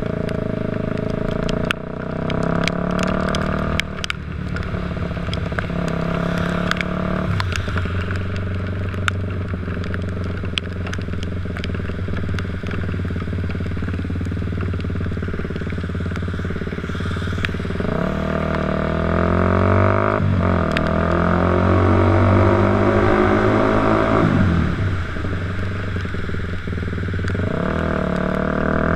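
Dirt bike engine running under way, held fairly steady at first and then, from about two-thirds in, revving up through the gears, its pitch climbing and dropping back at each shift. Scattered sharp ticks run through it.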